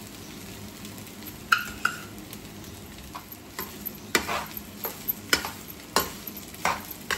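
Perforated steel spatula stirring cooked rice in a frying pan: a string of separate scrapes and clinks of metal against the pan, roughly one every second or less, the first about one and a half seconds in with a brief ring.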